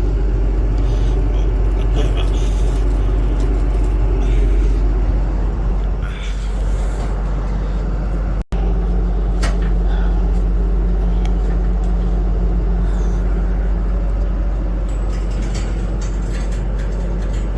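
Delivery truck's engine running steadily with a deep, constant rumble, broken once by a brief cut about eight and a half seconds in.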